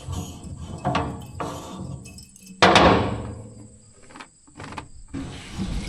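A few separate knocks and clunks of hard objects being handled. The loudest is a sharp bang about two and a half seconds in, with a short rushing tail.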